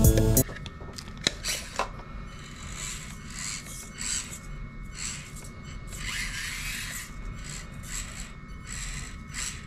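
Music cuts off about half a second in, followed by soft irregular scraping and rubbing sounds with a few light clicks.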